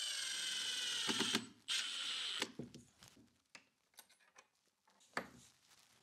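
Milwaukee cordless driver whirring as it drives screws into the steel jamb plate of a concealed door closer: one run of about a second and a half, then a shorter second run, followed by a few faint clicks.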